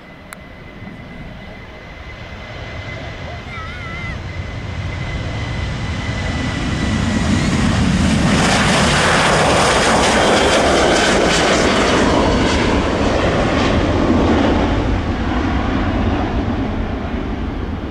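Boeing 737-700's CFM56-7B turbofan engines at takeoff power as the jet departs: a rushing roar that builds for about eight seconds, holds at its loudest, then eases off slightly near the end.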